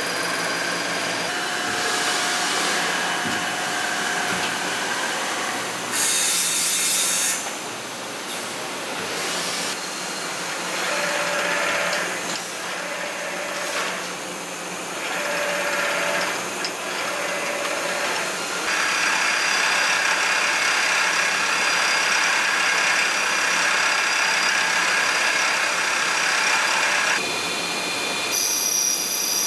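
Hwacheon horizontal CNC turning center cutting an aluminium 6061 part under coolant spray: radial drilling with a live tool, then radial tapping heard as a run of short stop-start strokes in the middle, then a steadier, louder cut. A high steady whine comes in near the end as the spindle spins the part for inner-diameter finishing.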